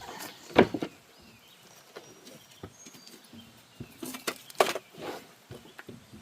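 Scattered knocks and clunks of hands and tools working on a riding mower's deck. The two loudest come about half a second and about four and a half seconds in.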